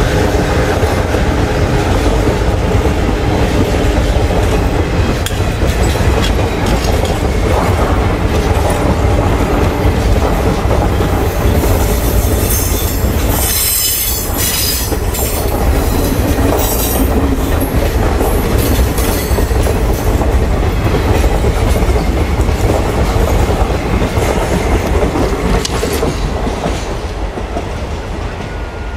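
Coaches of an Indian express passenger train passing close at speed: a continuous rumble of wheels on rail with rhythmic clatter over the rail joints. A high-pitched wheel squeal comes in about halfway through. The sound eases off near the end.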